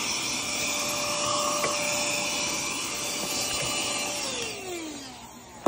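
Small handheld vacuum cleaner running steadily as it sucks up dust, then switched off about four seconds in, its motor whine falling in pitch as it spins down.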